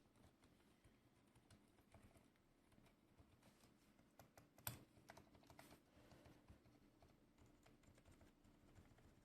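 Faint typing on a Durgod Taurus K320 mechanical keyboard with Cherry MX Silent Red switches lubricated with liquid PTFE: quiet, irregular keystrokes, with one sharper click just under five seconds in.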